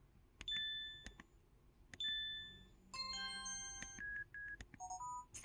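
A series of short electronic alert tones from an IM-S330K mobile phone. There are single beeps, a chime of several notes about three seconds in, then two short blips and a quick rising pair of notes near the end.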